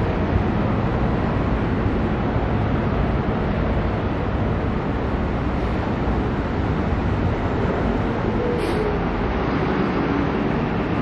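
Steady low rumble of city street traffic, with one brief sharp click about eight and a half seconds in.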